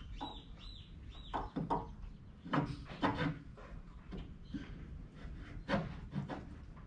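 Hands working metal parts at the shaft and bearing housing of a D18 American pumping unit's gearbox: scattered knocks, clinks and scrapes, with a few short high squeaks in the first second or so, over a low rumble.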